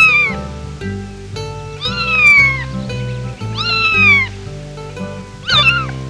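A cat meows four times, about every two seconds, each meow falling in pitch, over background music.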